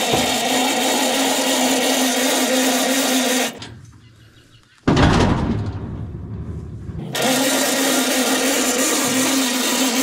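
Big trailer's jack being cranked by hand through its two-speed gearbox: a steady mechanical whir that stops for about a second and a half. A sudden louder rumble follows, then the cranking whir resumes. The jack sounds dry, in need of grease.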